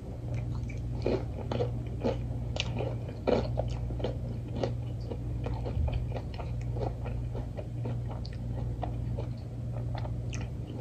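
A person biting into a seasoned fried chicken tender and chewing it: a run of irregular short crunches and wet mouth clicks.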